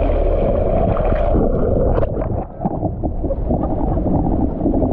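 Sea water rushing past a camera dipped under the surface beside a moving sailing dinghy's hull, heard muffled and low, with a few short splashes about two seconds in.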